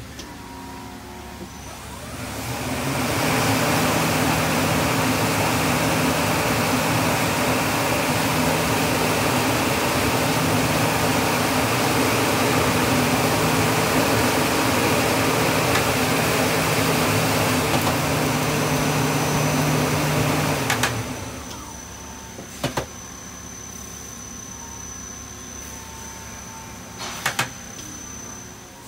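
Takisawa TT2100G CNC lathe spindle and chuck spinning up, running with a steady loud whir, then shutting down about twenty seconds in. A few sharp clicks follow over the quieter machine background.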